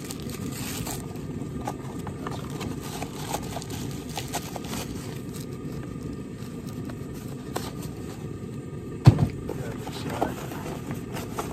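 Parts packaging being handled: a plastic bag of small parts and a cardboard parts box are turned over and opened, giving light scattered clicks, rustles and taps, with one sharp knock about nine seconds in. A steady low rumble runs underneath.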